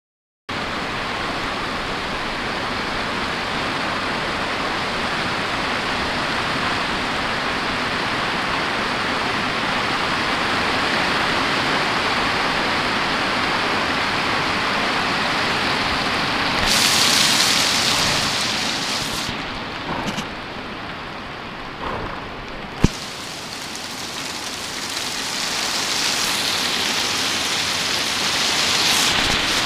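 Very hard rain with hail pouring down in a steady dense hiss. It swells about 17 seconds in, eases for a few seconds with a single sharp knock, then builds again.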